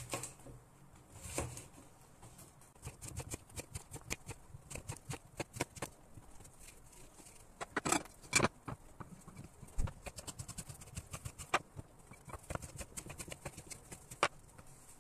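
Kitchen knife slicing zucchini on a wooden cutting board: runs of quick knocks as the blade strikes through to the board, with a few louder knocks in the middle.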